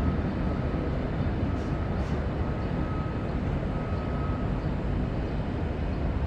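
Dassault Falcon 2000 twin-turbofan business jet's engines at takeoff power heard as a steady deep rumble, with a faint thin whine over it.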